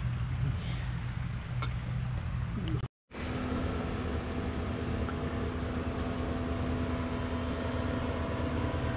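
A vehicle's engine running steadily under a rushing noise, cut off by a brief gap about three seconds in, after which a steady low drone carries on.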